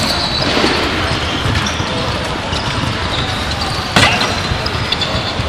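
Wheelchair rugby play on a hardwood gym floor: rugby wheelchairs rolling and the ball bouncing, with one sharp knock about four seconds in.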